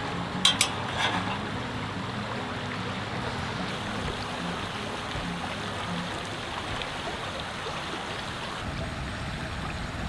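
Portable Sterno butane camp stove lit with its knob-turn igniter: a few sharp clicks in the first second, then the gas burner hissing steadily under a stainless steel pot of water.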